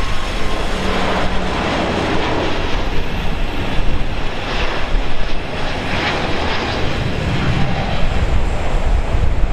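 Airbus A350-900's twin Rolls-Royce Trent XWB-84 turbofans at takeoff thrust as the jet lifts off and climbs away: a loud, steady jet engine noise with a deep rumble underneath.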